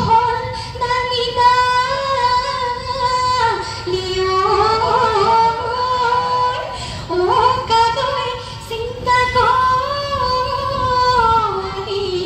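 A woman singing a Bihu folk song through a microphone, in long held notes that bend and slide in pitch, with brief breaths between phrases.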